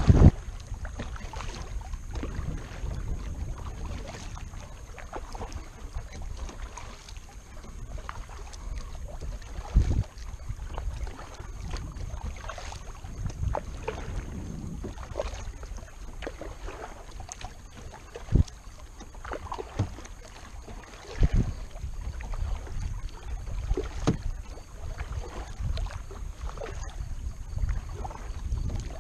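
Kayak paddle strokes: the blade dipping and splashing in the water, with drips and a few louder sharp splashes or knocks scattered through. Under it runs a low rumble of wind on the microphone.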